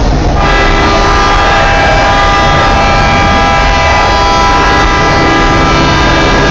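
A loud horn blast held steady at one pitch for about six seconds, starting about half a second in, over a continuous low rumble.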